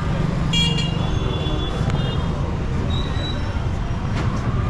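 Busy street traffic: a steady rumble of vehicle engines, with a short vehicle horn toot about half a second in.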